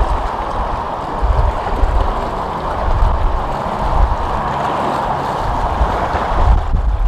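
Strong wind gusting across the microphone, with a steady rush of choppy water underneath.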